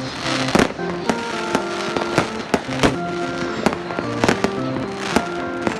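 New Year's fireworks going off, a rapid irregular series of sharp bangs and cracks, over background music with held notes.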